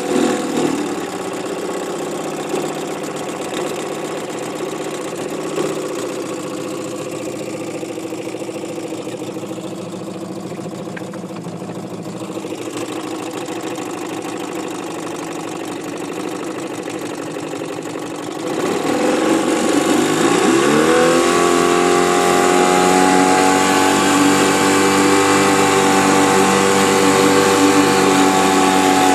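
1964 Johnson 3 hp two-stroke outboard motor running. Its pitch drops as it is throttled back at the start, and it holds a steady lower speed. About two-thirds of the way through it is opened up: the pitch climbs over a couple of seconds and it settles into a steady, louder, higher-speed run.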